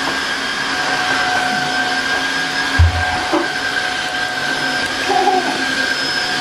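Tineco Floor One S5 cordless wet-dry floor washer running steadily while it scrubs and vacuums a wet tiled floor: a constant motor hum with a steady high whine. A brief low thump about three seconds in.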